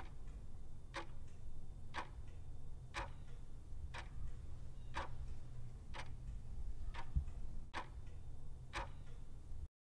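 Ticking-clock sound effect used as a countdown timer, about one tick a second, over a low steady hum; it cuts off abruptly at the end.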